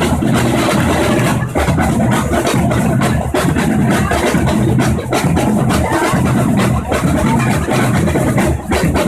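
Afro-Brazilian bloco percussion ensemble drumming: a loud, steady, dense groove of many drums struck together.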